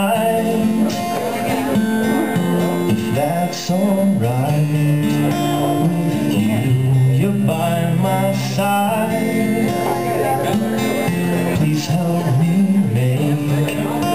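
Acoustic guitar strummed steadily in a live solo performance, with a melody line held over it.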